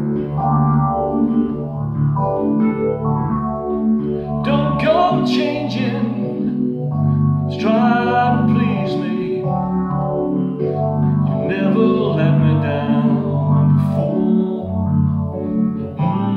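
Man singing a song to his own electric stage-keyboard accompaniment. The keyboard plays sustained chords alone for the first few seconds, then the voice comes in phrase by phrase.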